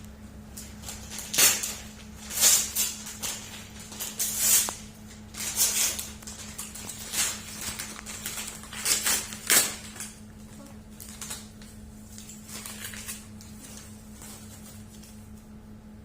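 Gift wrapping being crinkled and torn open by hand in a string of loud, irregular rustling bursts, dying down after about ten seconds.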